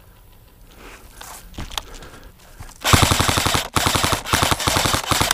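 Airsoft AK rifle firing on full auto: a fast rattling string of shots starting about three seconds in, broken by two short pauses between bursts.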